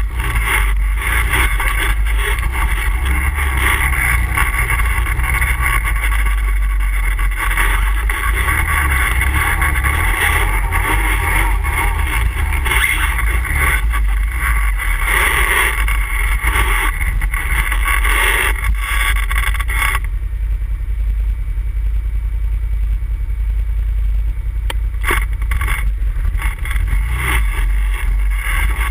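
ATV engine running steadily as the machine is ridden, a constant low rumble with rattling and noise above it; the higher noise drops away for several seconds about two-thirds through while the low rumble carries on.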